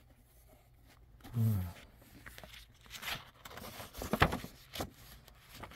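Book pages rustling and being leafed through, with irregular papery clicks, the loudest a little after four seconds in. A man gives a short "hmm" about a second and a half in.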